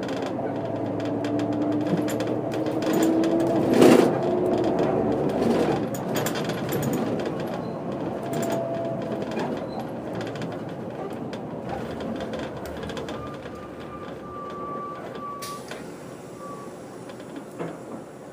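Diesel engine of a 1996 Setra 315 UL bus with manual gearbox, heard from inside while driving, over steady rattling from the body. Its pitch rises as it pulls for about four seconds, there is one loud knock, and then the engine sound slowly falls away.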